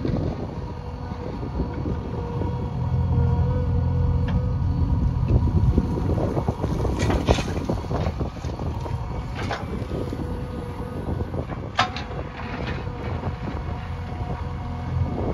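Diesel engine of a JCB backhoe loader running steadily, with several sharp metallic knocks, the loudest about twelve seconds in.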